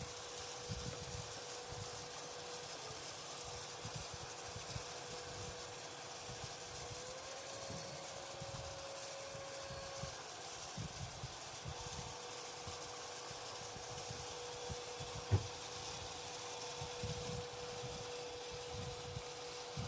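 Veniibot N1 Max robot vacuum running: a steady motor whine over a hiss, its pitch stepping up for about three seconds near the middle and then settling back. A single sharp knock comes about fifteen seconds in.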